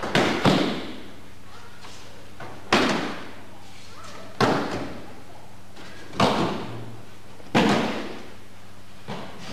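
Aikido breakfalls: bodies thrown onto the mat landing with a thud five times, about every second and a half, each thud trailing off in the hall's echo.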